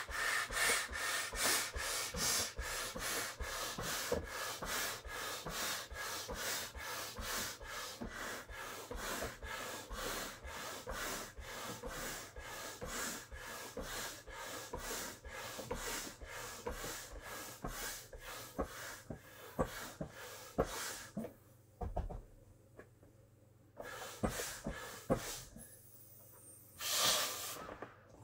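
Rapid, rhythmic breathing: a person blowing air by mouth into the valve of a large inflatable pony, about two to three puffs a second. The breathing stops about three-quarters of the way through, followed by a few separate short noises.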